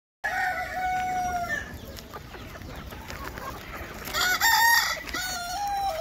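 Desi country chicken roosters crowing over a clucking flock: one crow at the start and a louder one about four seconds in.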